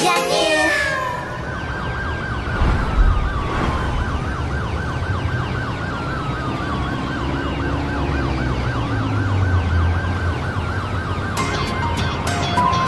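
Emergency-vehicle sirens sounding together, one a fast warble and one a slower rising-and-falling wail, over a low rumble. Music comes back in near the end.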